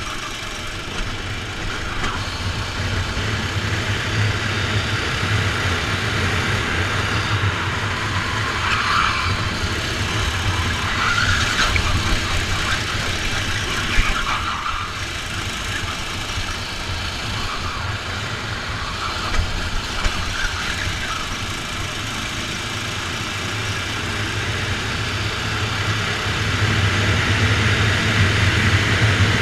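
Rental kart engine running hard under racing load, heard from on board, with its note growing louder over the last few seconds as the kart accelerates onto the straight. A single sharp knock sounds about halfway through.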